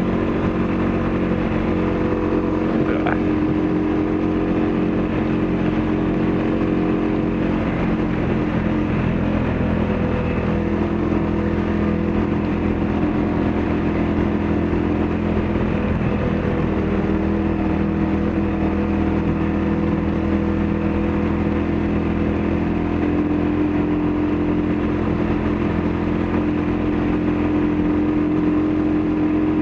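ATV engine running steadily at cruising speed along a gravel road, heard from on board the machine, with only small changes in pitch.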